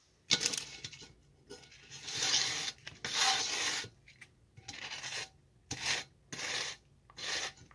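A small card scraping and pushing ground cannabis across a printed tray, in about eight short rasping strokes with brief pauses between them.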